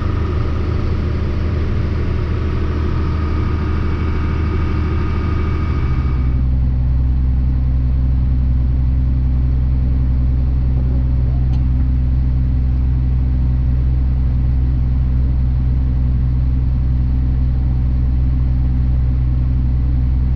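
A John Deere 4760 tractor's diesel engine running steadily under way, with a whine over the low engine hum. About six seconds in, the sound changes abruptly to a deeper, steady engine drone.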